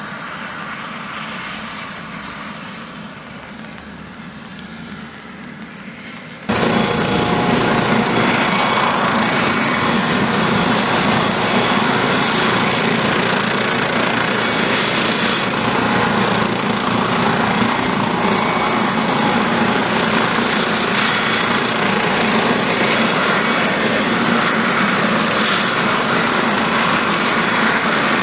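Airbus Helicopters EC155B1 twin-turbine helicopter running on the ground with its rotors turning, ahead of take-off. The noise is steady, jumps suddenly much louder about six seconds in, and then holds steady.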